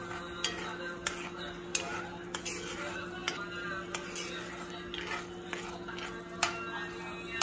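A metal spoon stirring sauce in a cast-iron skillet, knocking and scraping against the pan in irregular sharp clinks, over background music.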